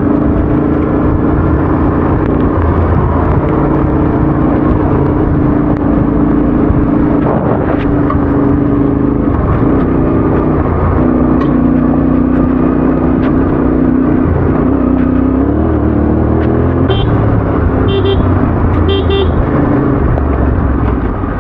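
Yamaha Ténéré adventure motorcycle's engine running under way, its pitch stepping up and down with speed and gear changes and rising briefly about two-thirds of the way through, over steady wind and road noise. A few short high chirps sound near the end.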